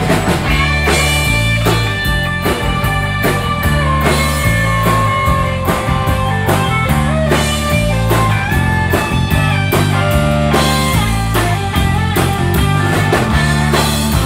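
Live rock band playing an instrumental passage without vocals: an electric guitar plays a lead line over drums, bass and strummed acoustic guitar.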